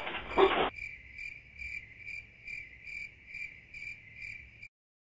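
A brief noisy burst at the start, then a cricket sound effect chirping evenly, about two and a half chirps a second, cutting off suddenly near the end.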